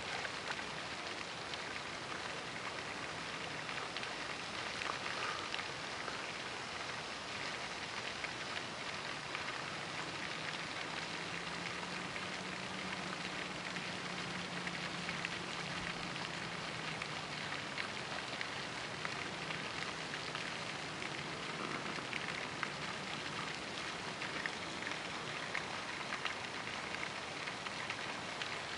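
Pond fountain spray falling back onto the water: a steady splashing hiss like rain on a surface.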